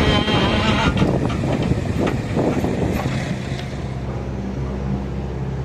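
Mechanical digger's engine running steadily, with rough crunching and clattering over the first three seconds that then gives way to the engine alone.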